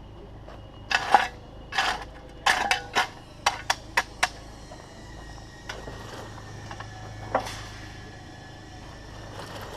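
Takeuchi TB216 mini digger running steadily while its steel bucket scrapes and clanks against stone: a quick run of about eight scrapes and knocks in the first few seconds, then one more in the middle.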